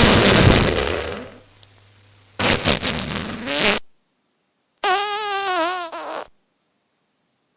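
Comedy fart sound effects: two noisy, spluttering blasts, then a higher, wavering squeak lasting about a second and a half.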